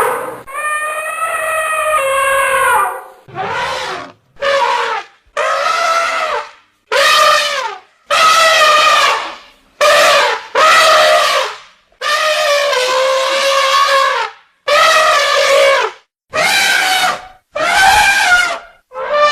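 Elephant trumpeting: about a dozen separate loud, brassy calls, most around a second long and one longer near the start, each split from the next by a brief silence.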